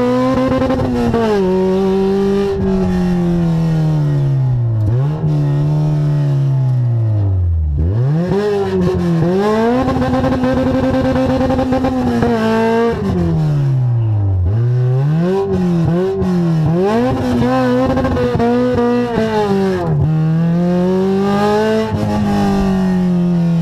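Toyota AE86 Trueno's engine heard from inside the cabin, revving up and down repeatedly under hard track driving. The revs fall steeply twice, about 8 and 14 seconds in, and hold high and steady for a couple of seconds between them.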